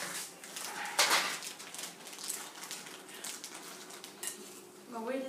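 Kitchen work sounds: scattered clicks, clinks and rustles of utensils and dishes, with one louder knock or rustle about a second in.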